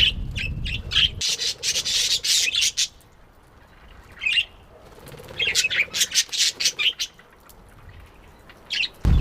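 Budgerigar chirping and chattering in quick, scratchy bouts, with short single calls and pauses between them. A low rumble sits under the first second.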